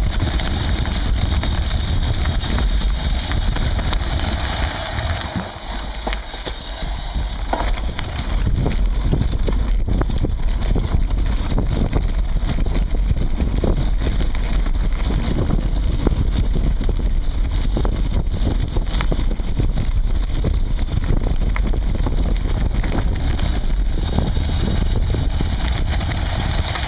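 Mountain bike rolling fast down a dirt trail, heard from a camera mounted on the bike: a steady rumble of wind and tyres with constant knocks and rattles as the bike is shaken over bumps. It drops briefly quieter about six seconds in.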